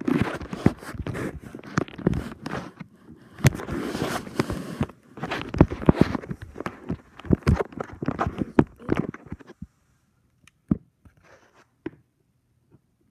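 Handling noise: irregular clicks, taps and rustling as plastic dolls are moved about on a shag rug and the recording phone is handled. It stops about nine and a half seconds in, leaving only a few faint clicks.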